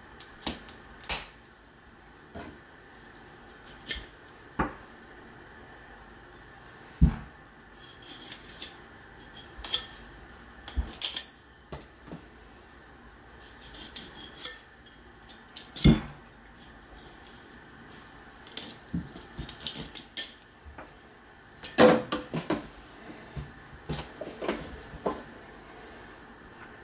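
Irregular metallic clinks and knocks of a blade and a rabbit carcass being handled on a stainless-steel sink drainer during skinning, with a few much louder knocks among them.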